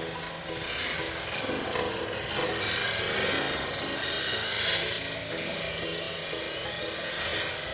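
An RC drift car's tyres scrubbing and sliding across the surface, in hissing sweeps that swell and fade about four times, over background music.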